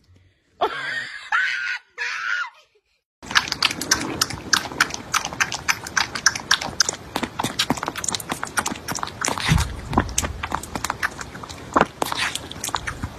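Kitten suckling milk from a feeding bottle: a fast, irregular run of wet clicks and smacks that starts about three seconds in, with a low thump near the middle.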